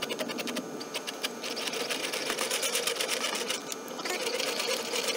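Stepper motor of a syringe-pump extruder turning its lead screw to back the plunger shuttle up, running in a fast, even buzz of steps with two brief pauses.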